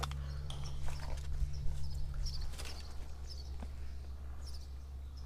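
Light clicks and rustles of hands handling fishing pliers and a clear plastic cup, over a low steady hum that thins out about halfway through.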